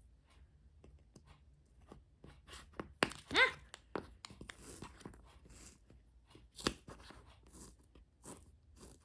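Small crunchy clicks and scrapes of kinetic sand and little plastic miniature pieces being scooped and handled, with one short rising squeak about three and a half seconds in and a sharp click near seven seconds.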